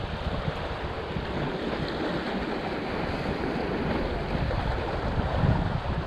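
Wind buffeting the microphone over small sea waves washing and splashing against the rocks and concrete tetrapods of a seawall, a steady rushing noise with gusty low thumps.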